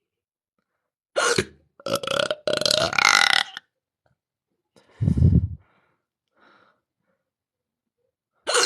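A woman belching loudly several times: a long drawn-out burp starting about a second in, a short deep one about five seconds in, and another starting just before the end. The burps come with a bout of hiccups that keeps making her want to burp.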